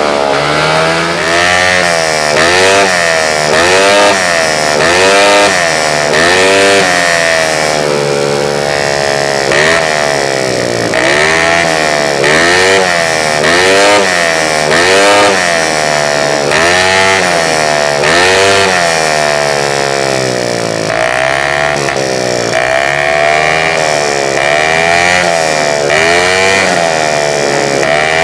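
Yamaha Mio J scooter's 130cc race-built engine, revved hard and let back down over and over, about once every second or so, with the rear wheel spinning free off the ground. It is being blipped while it is set up and tuned.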